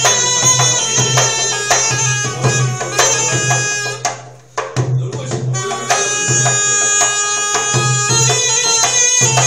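A folk tune (türkü) played on a small hand-held reedy wind instrument, sounding several notes at once, with a metal goblet drum (darbuka) beating a steady rhythm. The music breaks off briefly about four seconds in, then picks up again.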